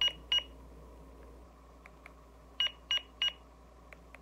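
YISEELE wireless home alarm system giving short, high-pitched electronic beeps as it is armed from its remote control: two quick beeps at the start, then three evenly spaced beeps about two and a half seconds in.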